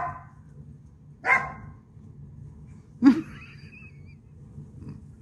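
A puppy barking: three short, high barks about a second and a half apart.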